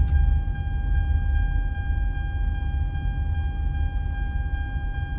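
Car's seat belt warning chime sounding as a steady high tone, because the driver's seat belt is unbuckled, over low engine and road rumble inside the cabin.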